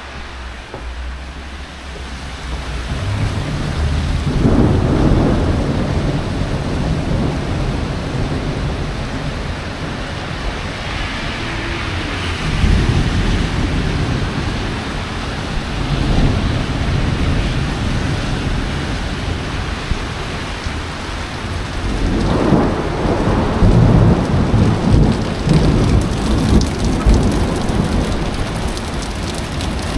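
Thunder rolling over heavy rain: several long, low rumbles that build from about three seconds in and swell again around the middle and in the last third, over a steady hiss of rain.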